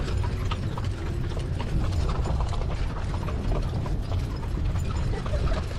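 Mule-drawn covered wagon rolling along a dirt road: hooves clip-clopping over a steady low rumble of the wheels, with many small clicks and rattles from the wagon and harness.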